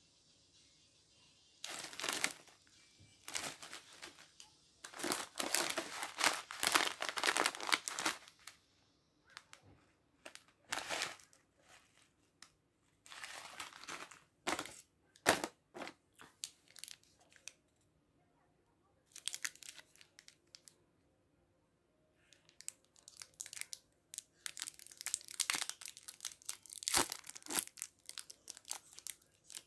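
Plastic and foil snack wrappers crinkling and rustling in irregular bursts as packets are handled, with a foil wrapper torn open near the end.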